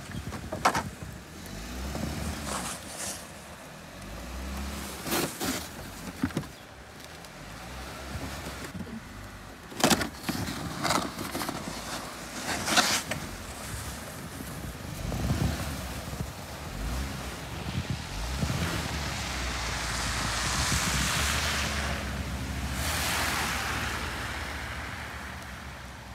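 A Jeep Wrangler Unlimited moving slowly with its engine running low, pushing a homemade snow plow through snow, with scattered sharp knocks and clatters. A hissing noise swells and fades near the end.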